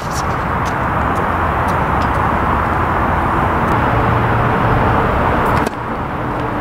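Tennis ball struck back and forth with rackets in a rally: short, sharp pops every second or so. Under them is a steady, loud rushing noise that drops suddenly near the end.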